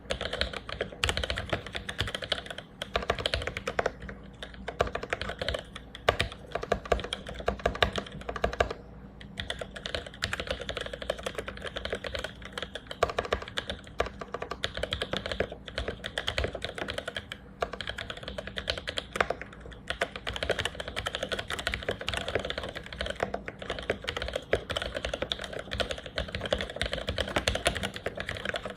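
Continuous fast typing on a mechanical keyboard with lubed vintage Cherry MX Black linear switches and GMK keycaps, a steady stream of deep keystroke clacks with a brief pause about nine seconds in.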